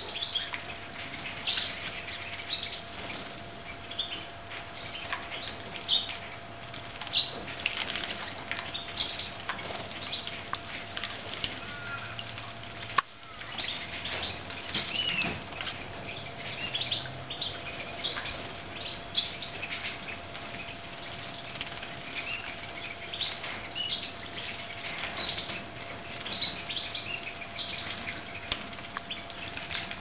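Red factor canaries bathing in a water dish: wings fluttering and splashing, with frequent short high chirps throughout.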